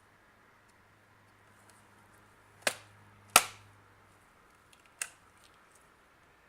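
Three sharp clicks from handling a digital multimeter under repair: two close together a little before halfway, the second the loudest, and a lighter one later. A faint low hum stops partway through.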